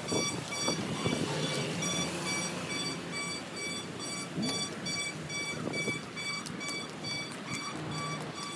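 Electronic warning beeper sounding an evenly repeating series of shrill beeps, with footsteps and handling noise on pavement underneath.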